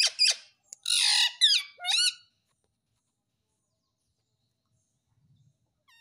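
Indian ringneck parakeet squawking: a harsh screech about a second in, followed by a few short calls that slide up and down in pitch, all within the first two seconds.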